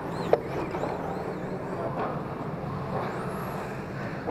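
Electric RC drift cars running on the track: thin, high motor whines rise and fall as the cars accelerate and ease off, over a steady hiss. About a third of a second in there is one sharp knock.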